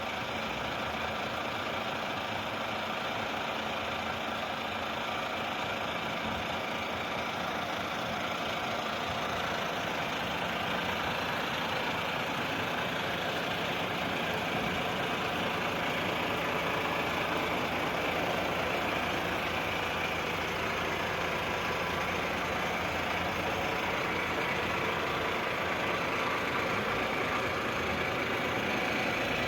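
Diesel engine of a Volvo heavy machine running steadily, growing slightly louder over the half minute.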